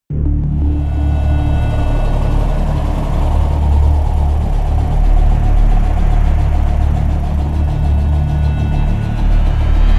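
Ural motorcycle's flat-twin engine idling steadily.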